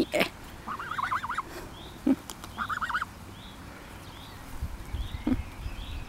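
Domestic goose giving two short, rapid warbling trills, the first about a second in and the second about three seconds in.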